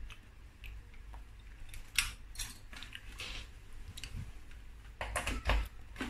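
Handling noise of a plastic gas detector and its power cord: scattered light clicks and rustles, then a quick cluster of clicks near the end as the plug is pushed into a power strip.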